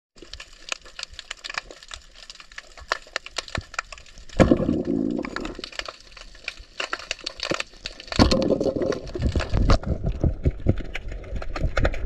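Underwater sound while spearfishing in a river: scattered sharp crackling clicks, a sudden low rushing rumble about four seconds in that lasts a second or so, and a longer dense rumble with clicks from about eight seconds on.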